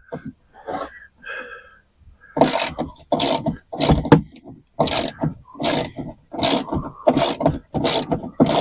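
Socket ratchet wrench being worked in quick back-and-forth strokes, about two or three clicking strokes a second, starting a little after two seconds in, turning a fastener inside the car door.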